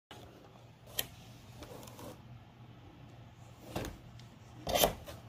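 Hands handling a cardboard box: a sharp tap about a second in, then cardboard rubbing and scraping, loudest near the end.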